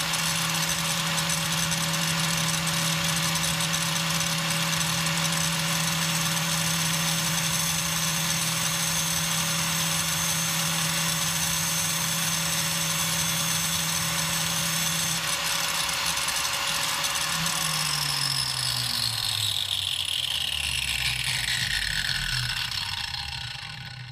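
Angle grinder running steadily while a 2.4 mm tungsten TIG electrode, turned slowly in a cordless drill, is ground to a point against its disc. About 17 seconds in the grinder is switched off and winds down with a falling whine that fades out.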